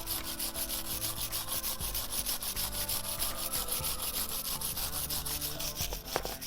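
Steel wire brush scrubbing rust off the brake caliper parts that the brake pads slide on, in quick, even back-and-forth strokes of about six a second.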